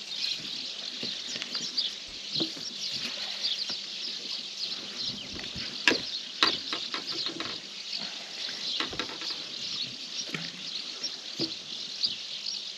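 Many small birds chirping constantly, with water splashing as a zander is brought to the side of the boat by hand. Two sharp knocks sound about six seconds in.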